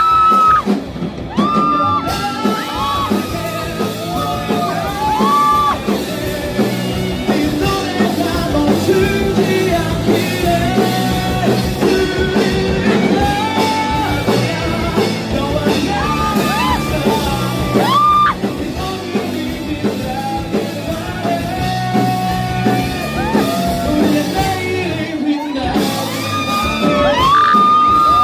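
Live rock band performance in a large hall: a lead singer's voice over the band, with long held high notes near the start and again near the end.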